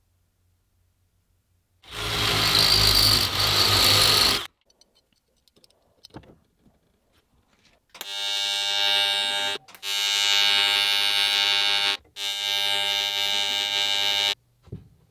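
A TIG welding arc buzzing steadily in three runs of about two seconds each, broken by short pauses as the arc is stopped and struck again. Earlier, about two seconds in, a loud hiss lasting about two and a half seconds.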